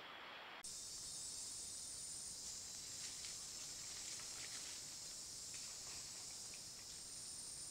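Rainforest insect chorus: a faint, steady high-pitched hiss, with a few small ticks scattered through it. About half a second in, a softer, lower forest ambience gives way to it abruptly.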